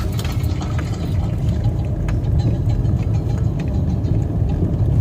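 Car driving, heard from inside the cabin: a steady low rumble of road and engine noise that grows a little louder toward the end.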